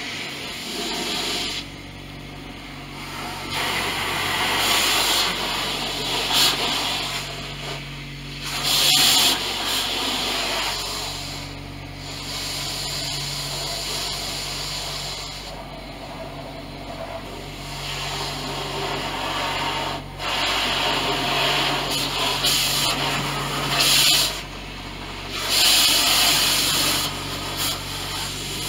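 Pressure-washer spray striking the car's outside, heard from inside the closed cabin: a hiss that swells and fades again and again as the spray sweeps across the body, over a steady low hum.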